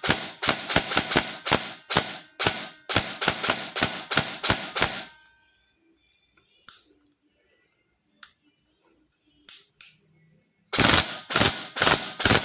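Tokyo Marui MK18 recoil-shock airsoft electric gun firing rapid semi-automatic shots, about three a second, for roughly five seconds. Then a few single clicks, and another quick string of shots near the end. The cycle feels too fast to the owner, who fears it will strip the piston again.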